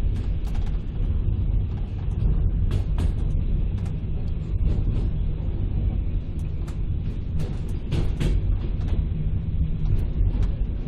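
Passenger train running, heard from inside the carriage: a steady low rumble with frequent sharp clicks and knocks.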